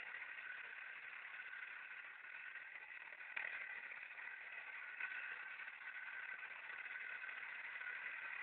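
Small battery-powered electric motor of a homemade wooden model tractor whirring steadily as it pulls a loaded trolley, with a couple of faint clicks.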